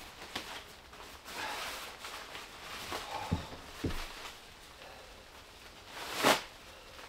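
Nylon rain gear rustling as it is handled and folded, with a few low knocks like footsteps on the wooden floor and one loud, brief swish of the fabric about six seconds in.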